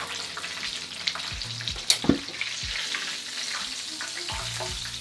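Breaded chicken pieces deep-frying in hot oil in a wok: a steady crackling sizzle. A few short knocks and clicks, the loudest about two seconds in, come as the pieces are lifted out onto a rack.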